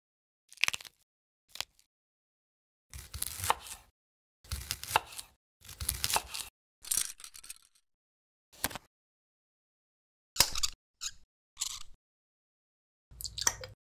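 Separate close-up food foley sounds with silence between them: a couple of light ticks, then four knife strokes slicing through a tomato on a wooden cutting board, then sharp clicks and a clink from a glass jar's wire-clasp lid being opened.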